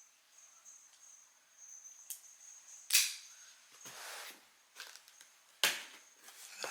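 A cardboard package being handled and opened: three sharp snaps about two, three and five and a half seconds in, with rustling between them.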